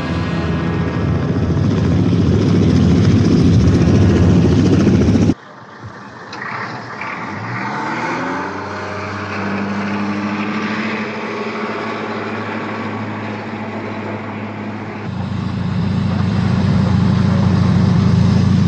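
Tandem-rotor helicopter's rotors and engine running loudly in flight. After a sudden cut about five seconds in, a jet engine spools up with a rising whine and settles into a steady whine and rumble, which gets louder near the end.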